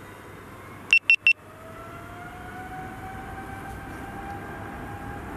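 Steady jet airliner noise of a Boeing 777-300ER, its GE90 engines whining and rising slowly in pitch. About a second in, three short, sharp high-pitched beeps sound close together and are the loudest thing heard.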